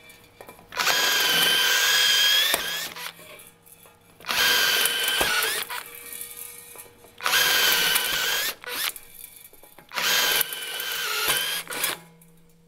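Cordless drill drilling out the rivets that hold a motorcycle exhaust silencer's end together: four bursts of high whine, each lasting one to two seconds, with short pauses between them.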